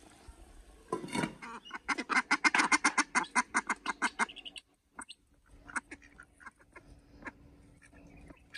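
Domestic ducks quacking: a fast run of quacks, about seven a second, for around two seconds, followed by a few scattered softer calls.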